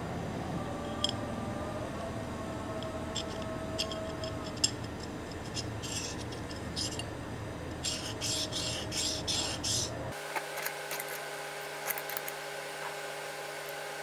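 Small metal workshop parts being handled, with scattered light clicks and taps, then a few quick rasping strokes of metal on metal. After a break about two-thirds of the way in, a steady machine hum runs under a few more clicks.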